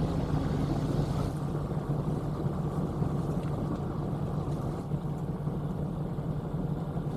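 Steady low engine hum of an idling vehicle, heard from inside the car's cabin.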